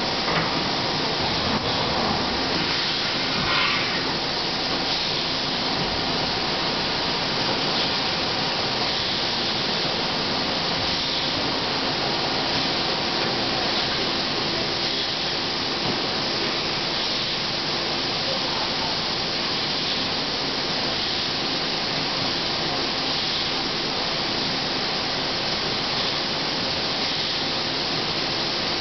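Blow molding machine for 20-litre plastic jerry cans running, with a steady airy hiss of compressed air and a faint steady hum. A brief, sharper sound stands out about three and a half seconds in.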